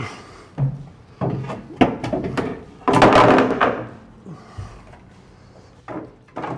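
Plywood boards knocking and scraping as they are pushed into place against the metal drawer system in the ute's tub: a run of wooden thumps, with a louder scraping slide about three seconds in.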